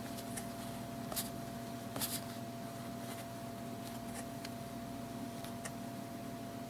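Fingertips turning the rotating slide-rule bezel of a Seiko SNA411 Flightmaster chronograph, giving a few faint clicks, the clearest about one and two seconds in, over a steady low hum.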